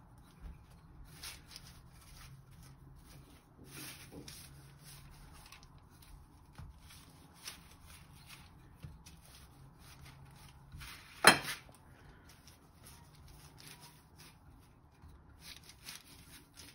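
Wooden rolling pin rolling out yeast dough on baking paper: soft rubbing and paper-rustling strokes, with one sharp knock about two-thirds of the way through.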